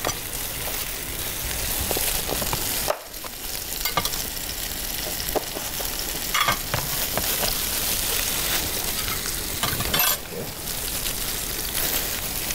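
Food sizzling steadily in a hot pan, with scattered clicks of a utensil stirring it. The sizzle drops away briefly twice, about three seconds in and near ten seconds.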